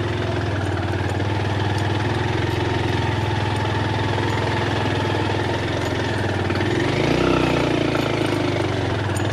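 Vehicle engine running steadily under load on a steep uphill climb, briefly rising in pitch and loudness about seven seconds in.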